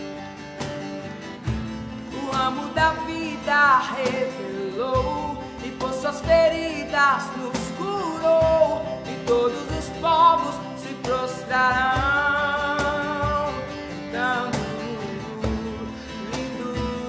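Acoustic worship song: a male voice singing over a strummed acoustic guitar, with a cajón keeping the beat. The singing comes in about two seconds in.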